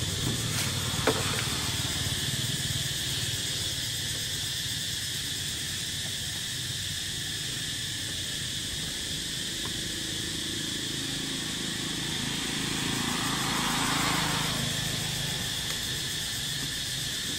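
Steady high-pitched insect drone, typical of cicadas, over a low hum, with a vehicle passing on the road, swelling up and fading about fourteen seconds in.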